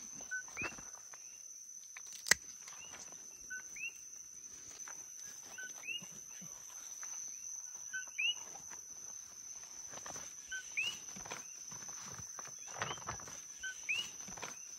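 Coqui frogs calling in chorus, each call a short low note followed by a quick rising chirp, repeating all through, over a steady high insect-like tone and light rustling of the cactus vines. One sharp click about two seconds in stands out as the loudest sound.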